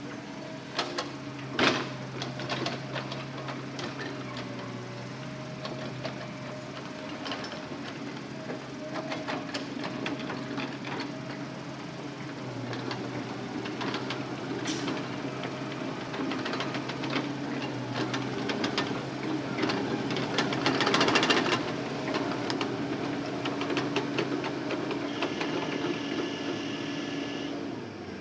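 Hitachi Zaxis excavator's diesel engine and hydraulics running steadily while loading logs, with scattered clicks and knocks. The machine grows louder for a moment about three-quarters of the way through, as if working under heavier load.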